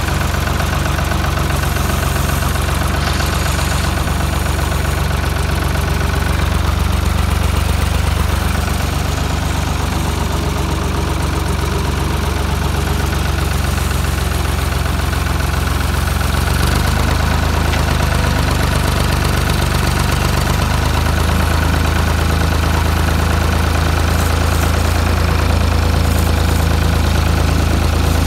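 Farm tractor engine running steadily, heard from the driver's seat close to its upright exhaust muffler while it carries a round bale on the front loader. Its note changes about two-thirds of the way through.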